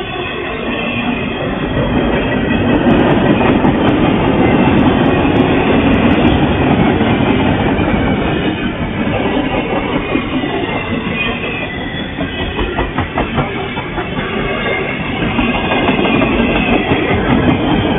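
Norfolk Southern double-stack intermodal freight train rolling past at close range: a steady heavy rumble of well-car wheels on rail, with the clickety-clack of wheels over rail joints, clearest in the middle.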